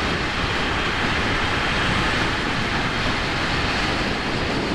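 Steady rush of wind and road noise from a Ducati Monster 797 motorcycle riding along at a constant speed, with the engine's sound blended into it.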